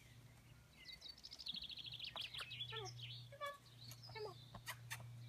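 Faint birdsong: a fast high trill, then several short chirps that each sweep downward, with a few sharp clicks near the end over a steady low hum.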